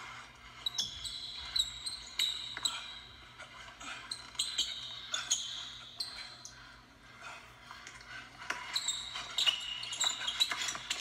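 A basketball being dribbled on a hardwood gym floor, with repeated bounces, and sneakers squeaking in short high squeals as the players cut and shuffle. The squeaks come thickest about a second in and again near the end.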